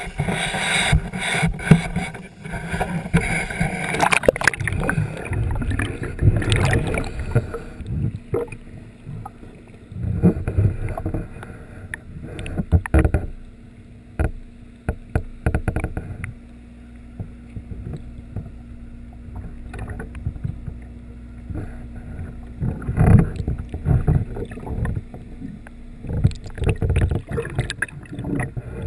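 Sound from an action camera lowered into the sea. It begins with handling and wind noise in the air. About eight seconds in it turns muffled as the camera goes under, then gives irregular sloshing and knocks against the housing over a steady low hum.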